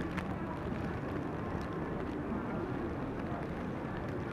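Steady low rumbling noise with scattered faint crackles and clicks.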